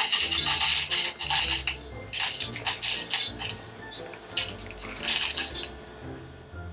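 Chocolate chips poured from a bag into a stainless steel bowl in three bursts, the chips clattering against the metal, with background music underneath.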